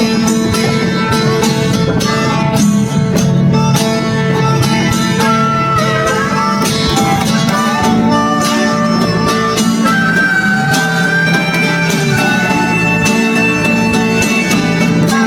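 Upbeat country-bluegrass style background music: plucked guitar with fiddle, a steady tune with no pauses.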